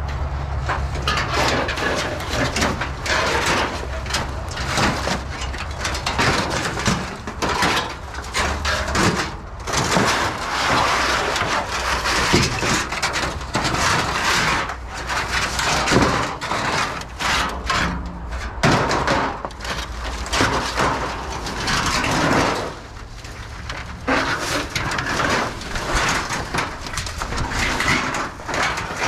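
Continuous rustling and crackling of dry brush and ground debris being disturbed, with many short snaps, briefly quieter about 23 seconds in.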